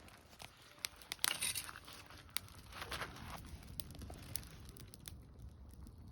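Wood fire crackling, with scattered sharp pops and a couple of louder rustling swishes, about a second in and again near three seconds.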